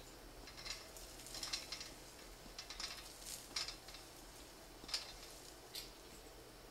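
Scattered light clicks and clinks of a steel ladder stand as a hunter climbs its rungs onto the platform, coming at uneven intervals.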